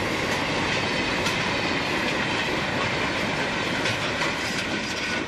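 Freight train passing at a distance: container wagons rolling along the track with a steady rushing rumble and a few faint clicks of wheels over the rails.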